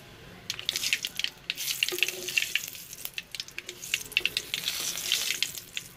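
Panch phoron seeds and bay leaves sizzling and crackling in hot ghee and oil in an aluminium kadai, with many small sharp pops. A wooden spatula stirs through the spices in the pan.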